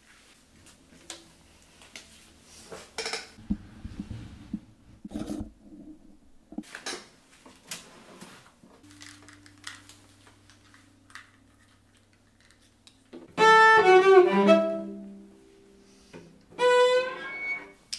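Knocks and rustles of a cello being handled and moved into place, then short bursts of bowed cello notes: a brief phrase about two-thirds of the way in and another short note near the end.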